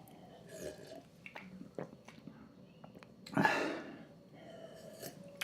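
A man's single heavy breath, a noisy rush through the mouth or nose lasting about half a second and coming about three and a half seconds in, amid faint small clicks. It is a hard breath from the burn of a ghost-pepper and Carolina Reaper extract.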